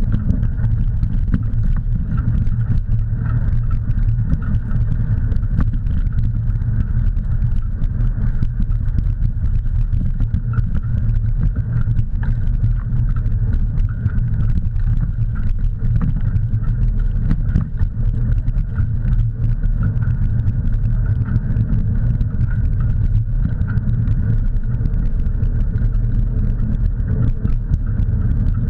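Steady wind rumble on the camera microphone, with the crunch of wheels rolling over a dirt track, as a dog pulls its rider along.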